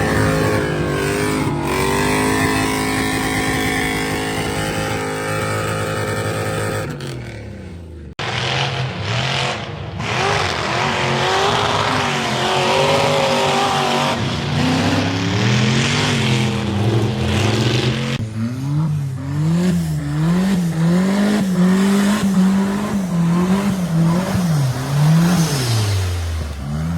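Off-road 4x4 engines revving hard under load, their pitch rising and falling. The sound breaks off briefly about eight seconds in, and over the last several seconds the engine is revved up and down over and over, about once a second.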